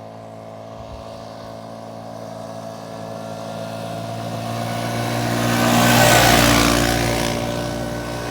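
ATV engine running at a steady pitch, growing louder as it comes closer and is loudest about six seconds in, then fading again.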